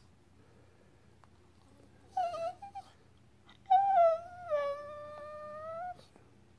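Small black-and-tan dog "talking": a short pitched whine about two seconds in, then a longer, louder one from about four seconds in that wavers, settles slightly lower in pitch and is held for about two seconds before stopping.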